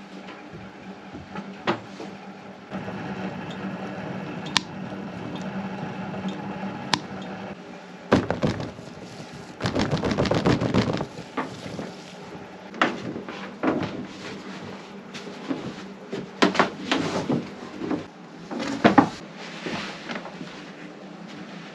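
Irregular knocks, thuds and scrapes of hands-on work in a small wooden room, with a louder rasping scrape for about a second and a half around ten seconds in.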